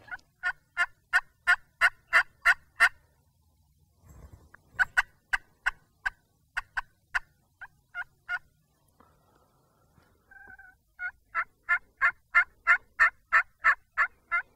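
Wild turkey yelping: three long runs of short, evenly spaced yelps, about three to four a second, with one short held note between the second and third runs.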